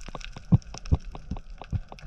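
Underwater sound from a head-mounted camera: a dense, irregular crackle of sharp clicks, with a few heavier low thumps about half a second, one second and near the end.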